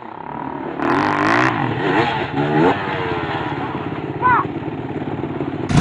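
Dirt bike engine revving in rising and falling surges, with a brief high-pitched sound a little past four seconds.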